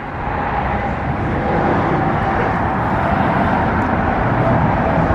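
Steady motor vehicle noise, a low rumble with a faint steady hum, swelling during the first second and then holding level.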